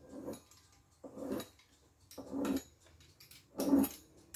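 Pizza-cutter wheel rolled through soft dough against the countertop in short strokes, four of them about a second apart, slicing the dough into strips.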